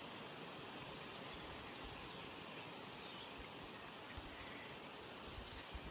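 Steady outdoor background hiss, with a few faint high, falling chirps about three seconds in and a few soft low bumps near the end.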